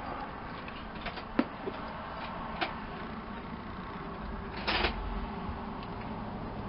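Hand tools working on a winch's mounting hardware: a few scattered sharp metal clicks, then a short rasping burst about two-thirds of the way through, over steady background noise.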